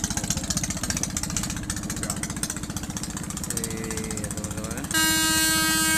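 Boat engine running close by with a fast, even knocking beat. About five seconds in, a loud, steady horn blast sounds over it.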